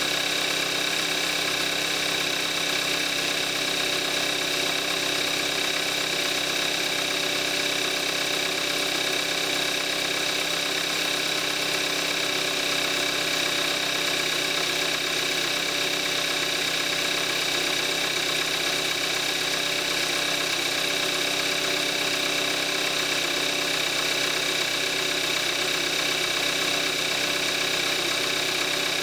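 2014 Kia Forte5's 2.0-litre gasoline direct-injection four-cylinder engine idling steadily while warming up after a cold start, on synthetic 5W-30 oil.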